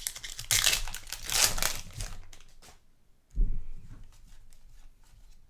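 Plastic trading-card pack wrapper crinkling and tearing as a basketball card pack is opened, in rustling bursts for the first two seconds or so, then a low thump about three and a half seconds in and fainter handling.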